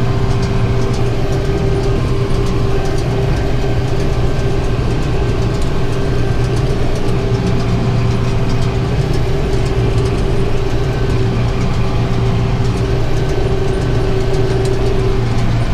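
Farm tractor running steadily under load while pulling and powering a round baler through hay, its engine hum and the baler's machinery blending, with a steady whining tone over them.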